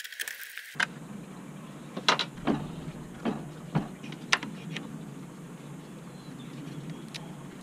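Scattered sharp plastic clicks and knocks, about seven, as hands work a small rubber hose at a car radiator's plastic filler neck, over a steady low background hum.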